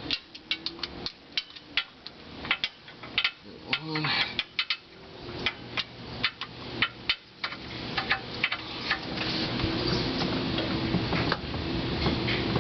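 Socket wrench working a stuck oil drain plug, giving irregular sharp metallic clicks and clinks, several a second. The plug is seized and will not turn.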